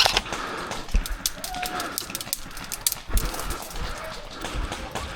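Footsteps with rustling and crunching through undergrowth: a dull thud about every second and a half under scattered sharp clicks.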